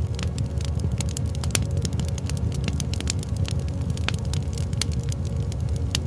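Fireplace fire crackling, with frequent irregular sharp pops and snaps over a steady low rumble.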